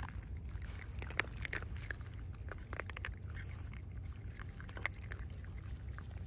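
Several raccoon dogs eating dry kibble off pavement: a scatter of small irregular crunches and clicks as they chew and pick up pellets, over a low steady rumble.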